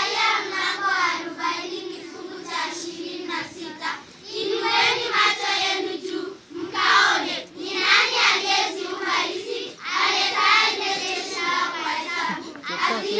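A children's choir of girls singing together, with long held notes.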